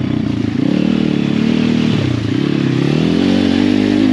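Apollo RFZ pit bike's swapped-in 150cc single-cylinder four-stroke engine running under way. The revs rise and fall, dipping about halfway through and climbing again.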